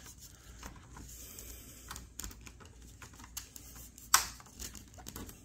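Light, scattered clicks and taps from handling the plastic slot car track and the continuity tester's clip as it is moved to the next rail section, with one sharper click about four seconds in.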